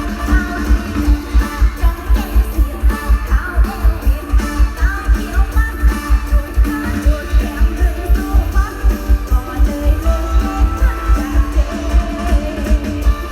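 Mor lam band music through a loud sound system: a heavy bass drum beat about three times a second under a plucked string melody.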